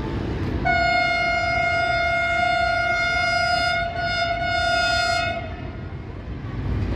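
HGMU-30 diesel locomotive's horn sounding one long blast of about three seconds, then after a short break a shorter blast, a single steady note, over a steady low rumble.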